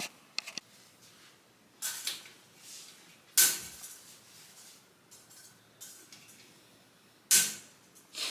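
Duvet and bedding rustling in a few short bursts as someone stirs in bed, the loudest near the middle and near the end, after a few light clicks about half a second in.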